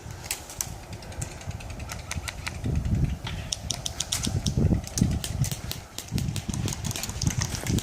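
Airsoft guns firing in scattered, irregular sharp cracks, with low thumps and rumble, loudest around the middle.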